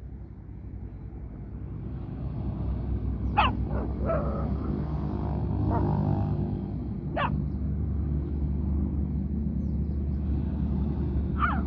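A dog barking four separate times, single barks spaced a few seconds apart, over a steady low rumble.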